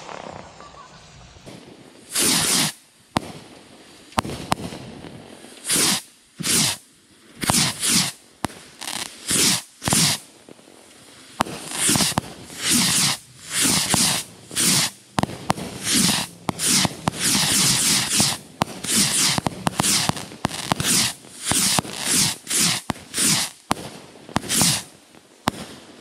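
Bottle rockets launching one after another from a rack, each a short hissing whoosh, with sharp pops between them. The launches start about two seconds in and come in rapid succession, roughly one to two a second.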